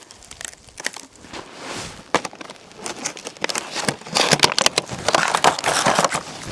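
Foil emergency blanket crinkling and crackling as it is shifted and handled, loudest about four to six seconds in.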